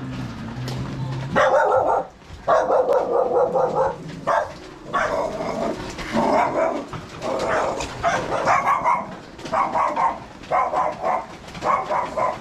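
A dog barking repeatedly, about a dozen loud barks in quick succession starting a little over a second in.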